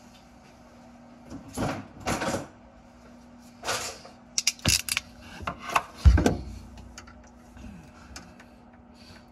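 Hands handling a thin wire and small plastic T-tap connectors: a few short rustling swishes, then a quick run of sharp clicks and a dull thump about six seconds in, over a faint steady hum.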